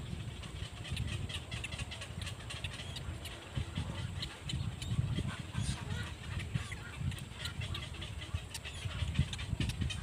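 Black-crowned night heron nestlings making rapid clicking, chattering begging calls while being fed, over a steady low rumble.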